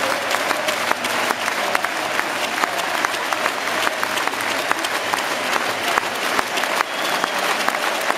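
Large football stadium crowd applauding: a dense, steady din of many hands clapping at once.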